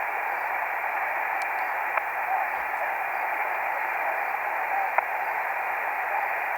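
Shortwave receiver tuned to a single-sideband voice weather broadcast, giving steady narrow-band hiss and static with a few sharp clicks. The voice is barely audible under the noise: weak reception.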